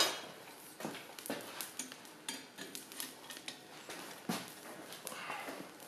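Light clinks and knocks of steel on steel: blacksmith's tongs gripping and lifting a forged chain link off the anvil, with one sharper clink about four seconds in, amid shuffling footsteps on a concrete floor.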